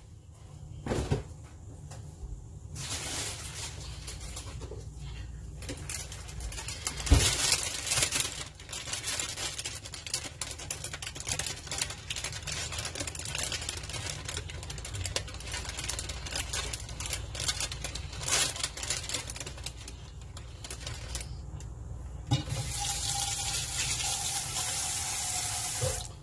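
Kitchen tap running into a sink, with a few knocks; about 22 seconds in the flow turns to a steadier, stronger stream that stops suddenly just before the end.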